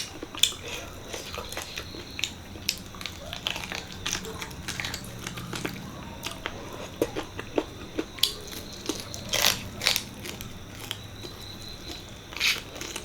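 Close-up eating sounds of mutton paya curry with rice: chewing and wet mouth clicks and smacks at an irregular pace, with a few louder bites.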